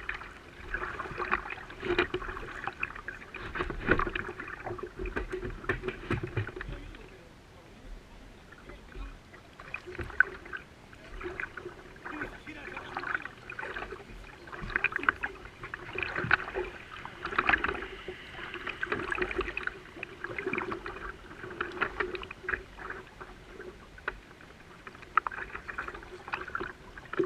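A kayak moving through water, with water sloshing and swelling in a rough rhythm about every one and a half to two seconds, as from repeated paddle or drive strokes. It eases off briefly about a third of the way in.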